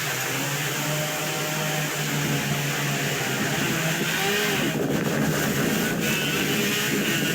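A distant engine hums steadily under a wash of wind noise on the microphone.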